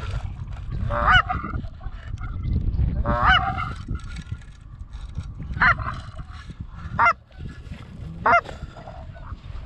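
Canada goose honks: five loud calls spaced a second or two apart, the first two drawn out and wavering, the last three short and sharp.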